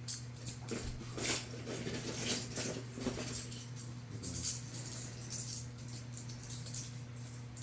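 Toy pieces being handled and set down: irregular light clicks, taps and rustles over a steady low hum.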